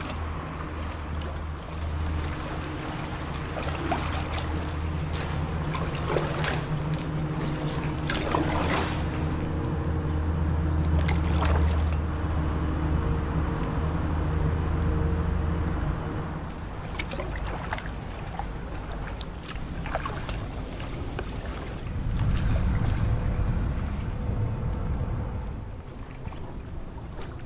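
A boat engine runs steadily with a low hum that fades out about two-thirds of the way through, and a low rumble swells again near the end. Short splashes of kayak paddle strokes come every few seconds.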